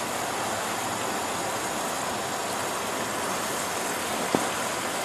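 Steady hiss from the pot of chicken cooking over the stove, with a single light click about four seconds in.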